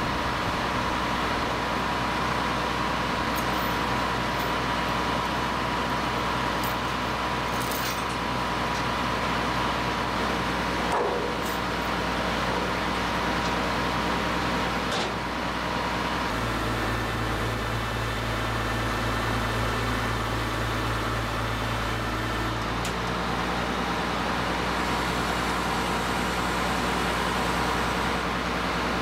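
Service truck's engine running steadily with a thin high whine. About halfway through, its note turns deeper and heavier as the truck-mounted crane takes the load and hoists a 6-foot earth auger.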